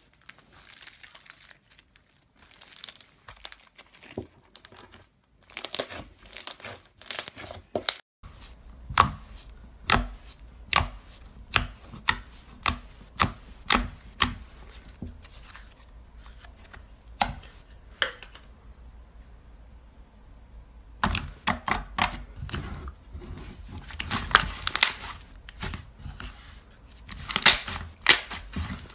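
Slime being squeezed and pressed by hand, giving an irregular run of sharp crackling pops and clicks, with a short pause about two-thirds through before the popping resumes.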